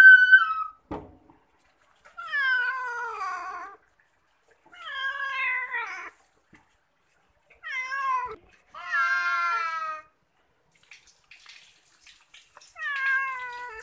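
Domestic cat meowing repeatedly while being shampooed: about five drawn-out meows, each a second or so long and falling in pitch, with short gaps between them.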